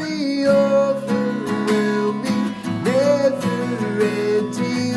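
Worship band music with a strummed acoustic guitar and a sung melody line held on long, wavering notes.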